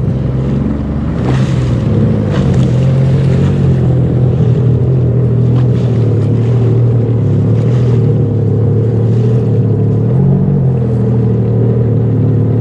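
Yamaha EX WaveRunner's three-cylinder engine running steadily at low speed, its pitch holding even while the craft creeps along.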